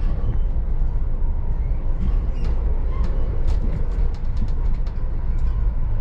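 Steady low rumble of a loco-hauled Mk3 passenger coach running at speed, heard from inside the coach, with a run of faint clicks and rattles in the middle.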